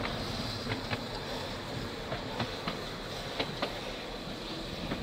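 Small narrow-gauge steam locomotive moving off slowly along the track: a steady hiss with short, irregular clicks and knocks.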